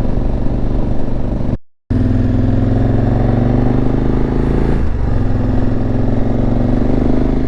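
KTM 1190 Adventure R's V-twin engine pulling under load while riding uphill, its pitch climbing, dipping briefly about five seconds in, then climbing again. The sound cuts out for a moment a little under two seconds in.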